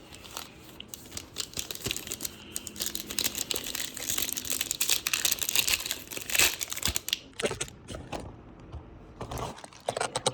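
Plastic wrapper of a trading card pack crinkling and tearing as it is handled and ripped open, a dense crackle that thins out after about seven seconds.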